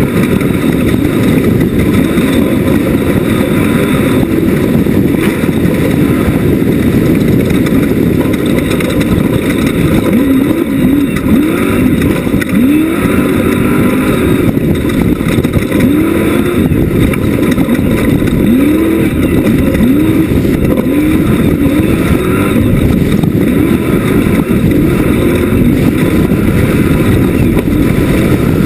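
Class 1 off-road race buggy engine running loud and hard under race load. From about halfway through, the revs rise and drop over and over, about once a second.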